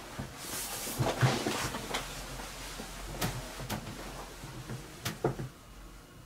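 Movement and handling noises close to the microphone as someone shifts about and leaves a high-backed chair: rustling through the first two seconds, then several sharp knocks and clicks, two of them close together near the end.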